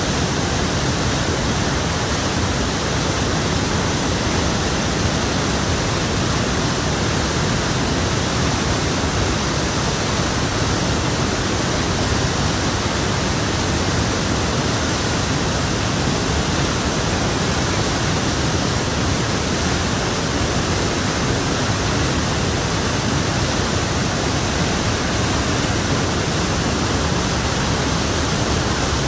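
Flood-swollen waterfall and muddy river torrent rushing, a loud, steady noise that never lets up.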